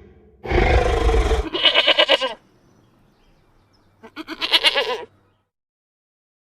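Goat bleating twice in short, quavering bleats, the second about two seconds after the first. The first bleat follows straight on from a loud, rough call that begins about half a second in.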